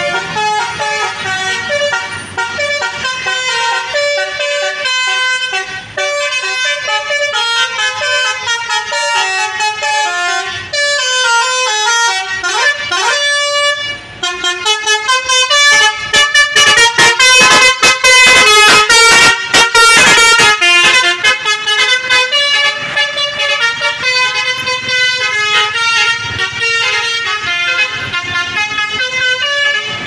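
Tour-bus telolet (basuri) multi-tone horns playing a fast melody, the notes stepping up and down in pitch, with a rising glide a little before halfway. The horns are loudest from about halfway to two-thirds through as a bus comes close.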